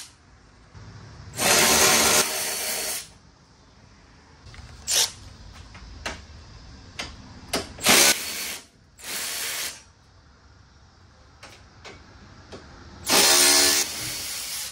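Milwaukee cordless power tool spinning out 10 mm bolts, in about five short runs of one to two seconds each, with light clicks between them.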